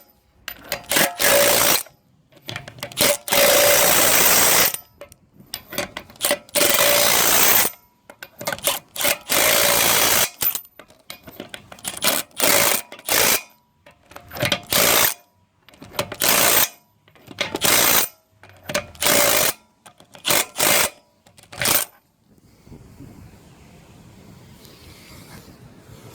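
Milwaukee M12 FUEL 1/2-inch drive cordless impact wrench rattling wheel nuts back onto the wheel studs. It runs in about a dozen short trigger bursts of uneven length over some twenty seconds, then stops.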